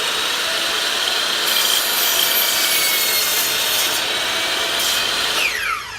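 Electric power saw running and cutting through a wooden board, then winding down near the end with a falling whine as the blade spins to a stop.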